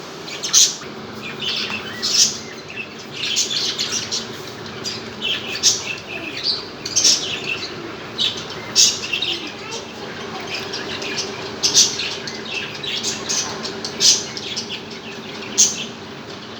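A flock of caged budgerigars chirping and chattering, with many short, high chirps overlapping.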